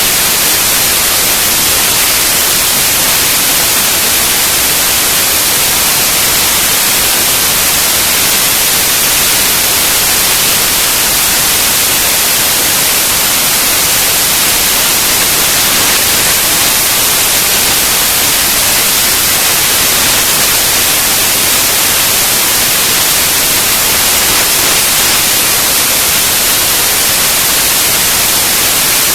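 Loud, steady hiss like static or white noise, brightest in the high range, with no change or break.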